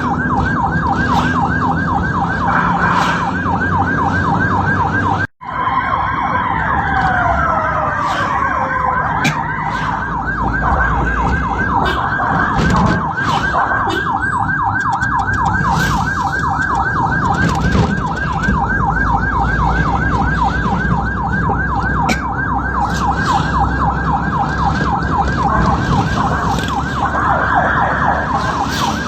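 Ambulance electronic siren on a fast yelp, a rapid up-and-down warble repeating several times a second over the rumble of the moving vehicle. About five seconds in it cuts out for an instant, and a couple of slower falling tones sound just after.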